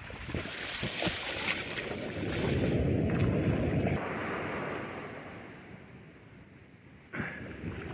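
Surf washing over the sand, with wind buffeting the microphone. The sound cuts abruptly about halfway through and fades, then jumps back up sharply near the end.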